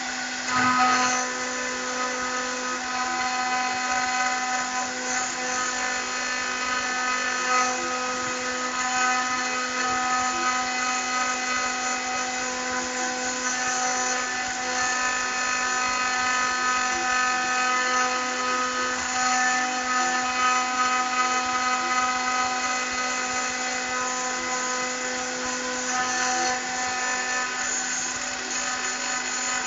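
CNC spindle running at a steady high-pitched whine while the engraving bit cuts into aluminium, with a rough grinding edge over the tone and a brief louder spike about a second in.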